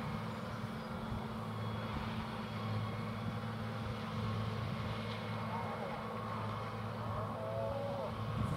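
Tractor engine running steadily under load, pulling a Pöttinger loader wagon that is picking up grass for silage, heard as a constant drone across the field.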